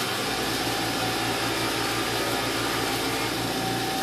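A small electric motor-driven tool running steadily at full speed while valve parts are cleaned, with a steady hum over its noise.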